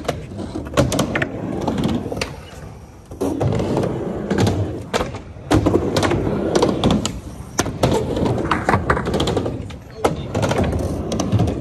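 Skateboard rolling back and forth on a mini ramp: a continuous wheel rumble broken by repeated sharp clacks and knocks of the board and trucks.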